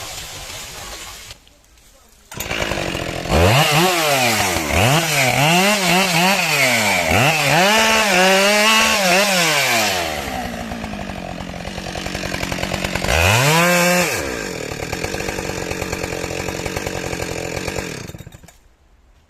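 A small engine revving up and down again and again, then running more steadily with one more rev, and cutting off shortly before the end.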